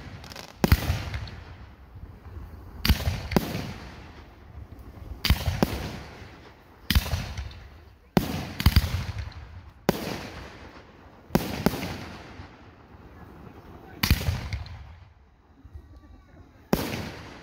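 Aerial firework shells bursting overhead: about a dozen sharp bangs, one to two seconds apart and sometimes in quick pairs, each trailing off over a second or so.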